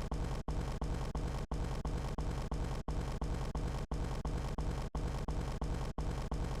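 Vine boom meme sound effect repeated extremely fast, its deep booms running together into one continuous low rumble. Brief gaps cut in about once a second, where the repeats are not joined cleanly.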